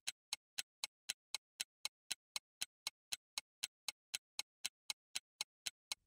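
Ticking-clock sound effect, a steady run of light ticks at about four a second, marking a pause for the viewer to work out the answer.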